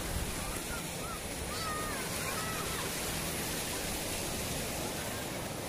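Sea surf washing onto a beach: a steady rush of small breaking waves, with faint wavering high calls about two seconds in.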